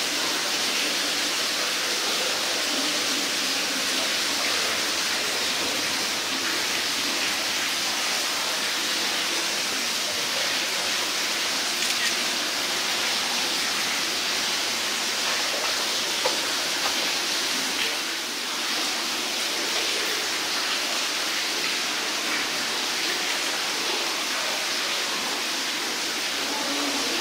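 Steady, even hiss with nothing standing out, strongest in the upper range.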